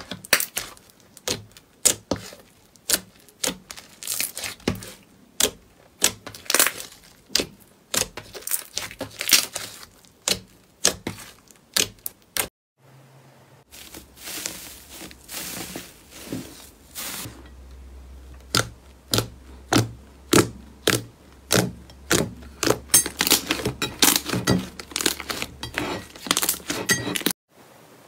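Hands pressing and squishing glossy pink slime, which gives a quick run of sharp clicking pops. After a cut about 13 seconds in, a slime covered in crinkled red foil is squeezed, crackling and crinkling with more pops.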